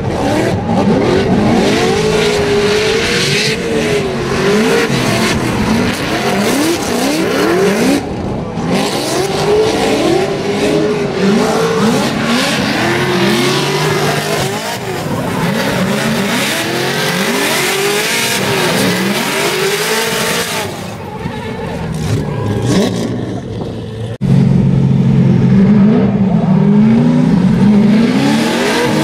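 Drift cars in a tandem run, their engines revving up and down again and again with the throttle as they slide, over a hiss of squealing tyres. The sound jumps abruptly about eight seconds in and again near the end, where it gets louder.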